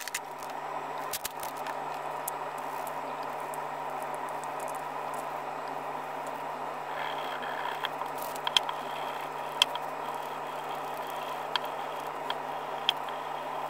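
Steady whirring room noise with a low hum. Over it, gloved hands rubbing dye into a leather sheath make light scrapes and scattered small clicks, more often in the second half.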